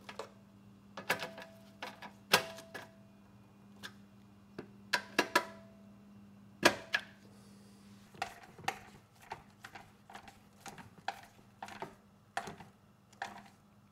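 Hand tools clicking and knocking against the mower engine's shroud and fittings during reassembly. Several sharp clicks leave a short metallic ring, and in the second half lighter clicks come about two a second.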